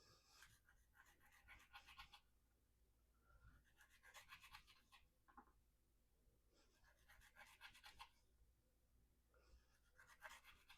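A VG-10 Spyderco Endura 4 knife edge drawn through rope in four faint, rasping slicing strokes about three seconds apart. This is the blade's coarse, toothy edge still biting cleanly late in an edge-retention test.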